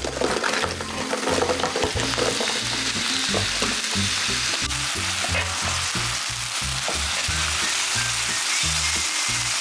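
Thin-sliced beef brisket dumped onto a hot griddle pan, bursting into loud sizzling the moment it lands and frying steadily as it is spread and stirred around the pan.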